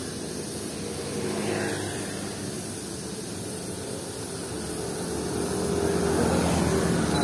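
Street traffic on a city road: the steady running of passing vehicle engines, growing louder toward the end.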